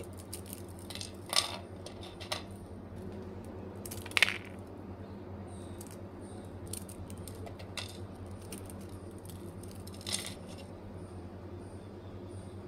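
Crisp baked (non-fried) chakali, a rice- and gram-flour spiral snack, snapping and crackling as fingers break and crumble it. A few sharp cracks, the loudest about four seconds in, with fainter crumbling between. The crisp sound shows the chakali has baked through properly crisp.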